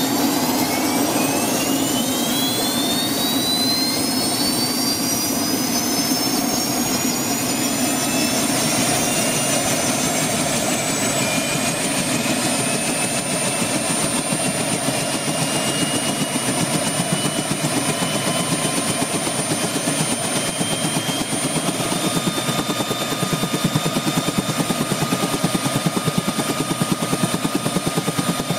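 Allison Model 250 (T63) turboshaft display engine, a sectioned unit, spinning up: a whine climbs in pitch over the first ten seconds or so, then holds steady over an even rush of noise.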